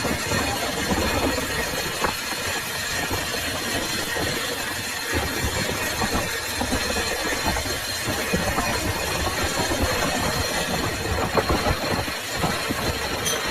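Metal lathe running while machining a steel shaft: a steady mechanical drone with a constant rapid rattle.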